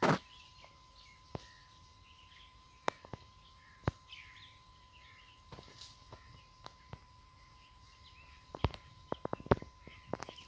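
Outdoor ambience among bushes: faint bird chirps over a faint steady high tone, broken by scattered sharp clicks and knocks. A loud bump comes right at the start and a quick run of clicks near the end.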